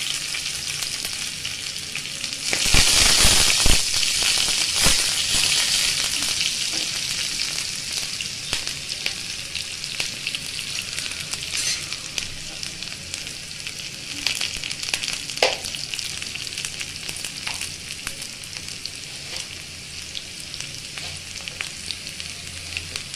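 Chopped onions sizzling in hot oil and ghee in a kadai. The sizzle flares up loudly about two and a half seconds in as the onions go into the hot fat, then settles into a steady frying hiss that slowly fades, with scattered light clicks.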